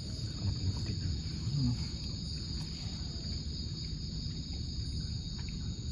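Night insects, crickets, chirring steadily in one high band over a low rumble.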